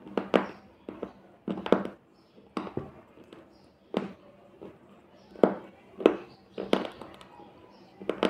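Close-miked crunching of hard slate pencil chips between the teeth: about a dozen sharp, uneven crunches, some in quick pairs, with short pauses of chewing between them.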